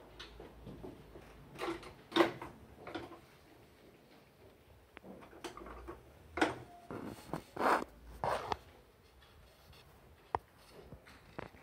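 Brush working paint on canvas: short scrubbing strokes in two clusters, about two seconds in and again from about six to eight and a half seconds in, with a single sharp click just after ten seconds.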